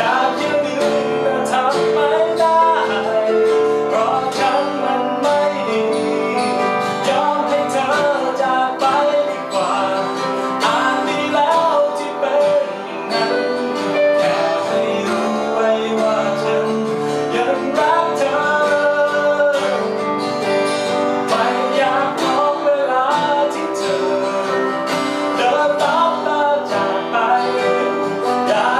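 A man singing with a strummed acoustic guitar and keyboard accompaniment, performed live.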